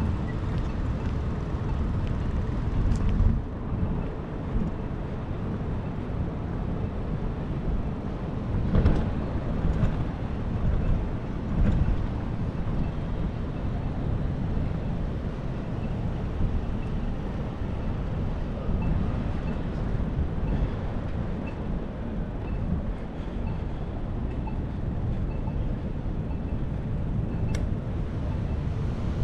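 Steady low rumble of wind on the microphone and road noise while riding a bicycle through city traffic, with a few louder bumps.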